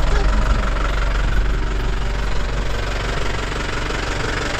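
Mahindra off-road jeep's engine running steadily as the jeep drives over bare rock.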